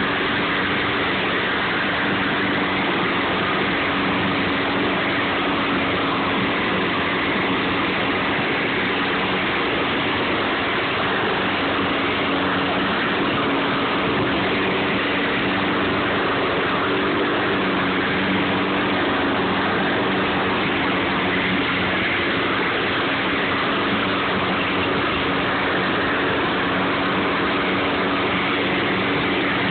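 Gasoline walk-behind rotary lawn mower engine running steadily while the mower is pushed across grass, mowing: a loud, even engine hum over the rush of the blade.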